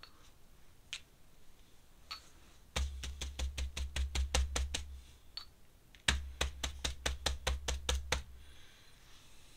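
Ink brush dabbed rapidly against paper on a drawing desk: two runs of quick taps, about six a second and each about two seconds long, with a dull thud from the desk beneath them.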